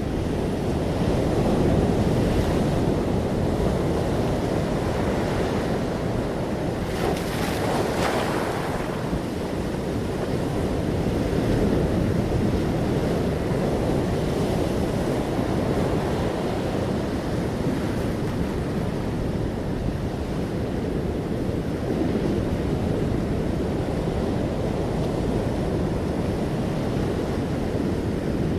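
Sea waves breaking and washing onto the shore in a continuous low wash, with one brighter, hissier breaker about seven seconds in.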